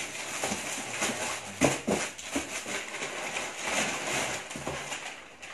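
Groceries being rummaged in a cardboard box: packaging rustling, with several knocks as items and the box are handled, the loudest about a second and a half in.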